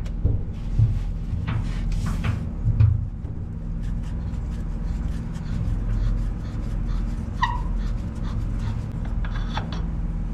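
A man breathing hard with low grunts while he holds up a heavy bush hog blade assembly and spins off its centre nut, with faint metal clicks from the nut and tools.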